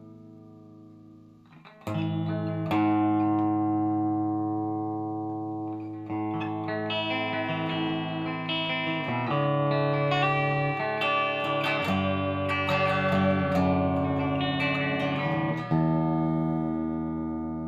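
Gibson Flying V electric guitar being played: a chord dying away, then from about two seconds in ringing chords and picked single notes, with a fresh chord struck near the end.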